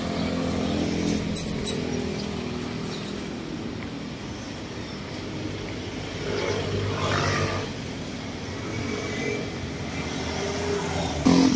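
Road traffic on a city street: car and motorcycle engines running past close by, with another vehicle swelling past about six to seven seconds in.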